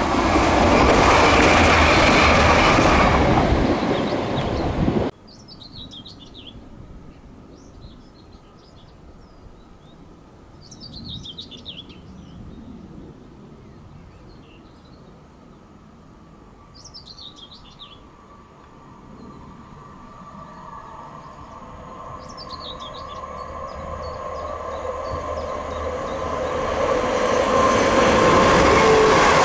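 A diesel multiple unit, a Class 170 Turbostar, passes close by with loud rail noise that cuts off abruptly about five seconds in. A songbird then sings four short descending phrases, while another Class 170 unit is heard approaching, its engine note growing steadily louder until it passes close near the end.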